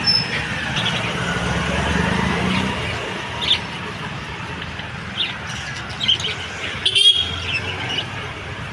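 Small pet parrots (lovebirds and budgies) giving short chirps and squawks, a few scattered calls from about halfway through and a louder burst of calls about seven seconds in, over a steady background rumble.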